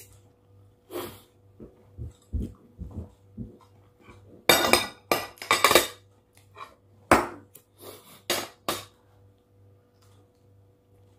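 Cutlery clinking and scraping on a ceramic dinner plate while eating, in scattered knocks that bunch into quick runs around the middle and fade out near the end.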